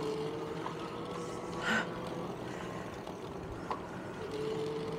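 Bicycle riding along a forest path: steady rolling and wind noise with a faint steady whine, a short hiss about two seconds in and a light click near the end.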